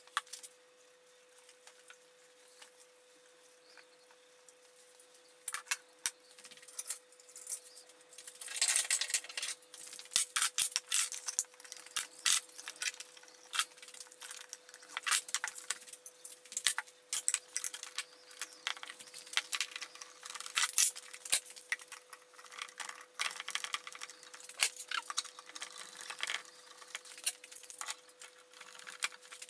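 Steel bar clamps and F-clamps being handled, slid and tightened on a glued-up panel of oak boards. Irregular metallic clinks and rattles mix with knocks of clamp jaws against the wood; they begin a few seconds in and grow busy from about a third of the way through.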